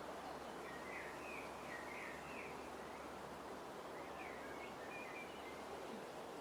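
Steady outdoor background hiss with a small bird chirping in short bursts of quick notes, twice.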